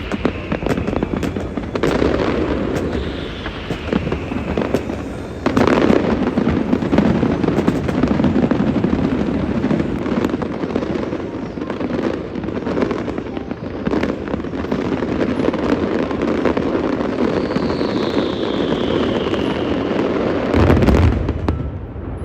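New Year's fireworks display going off: a continuous barrage of bangs and crackling, with three whistles that fall in pitch and a big burst near the end.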